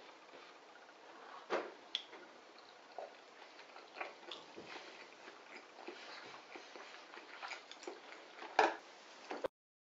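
Wooden chopsticks clicking and tapping against a ceramic bowl while eating, a scatter of light clicks with a few sharper ones; the sound cuts off abruptly near the end.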